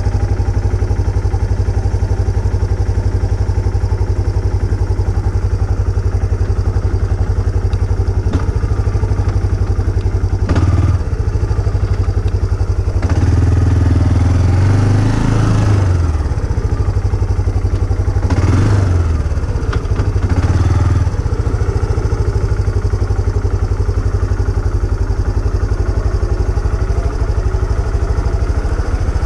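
Off-road vehicle engine running steadily on a trail ride, with a fast even firing pulse; the revs rise and fall briefly about halfway through and again a few seconds later.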